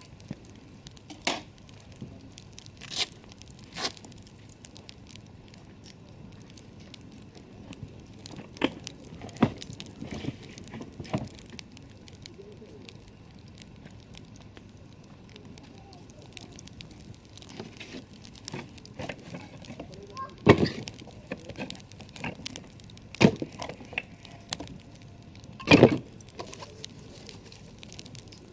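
Wood campfire crackling: scattered sharp pops and snaps over a soft hiss, irregularly spaced, with a few louder snaps in the second half.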